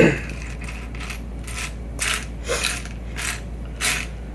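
Loose plastic Lego pieces clattering as hands rummage through them in search of a part, a string of short rattling clicks about every half second.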